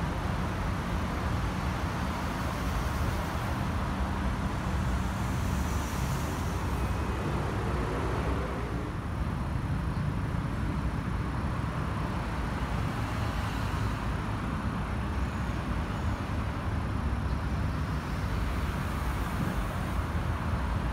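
Steady road traffic noise: the continuous rumble of passing cars and other vehicles.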